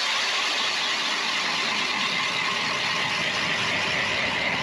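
Battery-powered ION electric ice auger running steadily as it drills down through lake ice.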